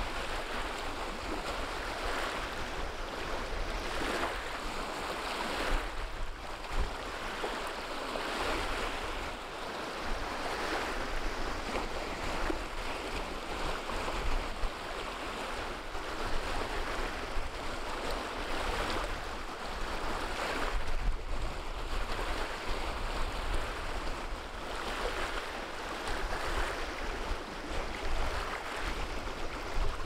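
Small wind-driven waves breaking and washing up onto a pebble shore, the surf swelling and falling with each wave. Under it runs a steady low rumble of wind on the microphone.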